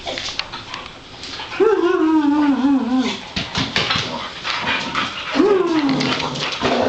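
Boxer dogs play-fighting: a drawn-out wavering whine about a second and a half in and a shorter one near the end, over scuffling, claw clicks and slapping noises.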